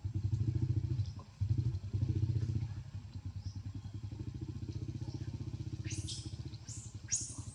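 A small engine running nearby with a rapid, even low putter, loudest in the first two or three seconds and then steady. Near the end come a few short high squeals.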